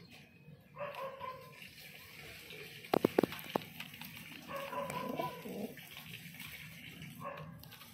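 Domestic pigeons cooing in two bouts, low and wavering. A quick cluster of sharp clicks about three seconds in is the loudest sound.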